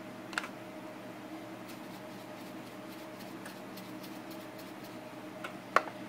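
Quiet kitchen with a steady low hum. Seasoning containers are handled on the countertop: a light click about half a second in, faint ticks in between, and a sharper click just before the end.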